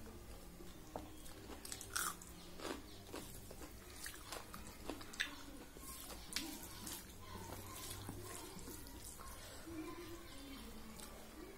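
Eating rice and dal by hand: wet squishing as fingers mix the rice, and open-mouthed chewing, heard as irregular wet clicks and smacks.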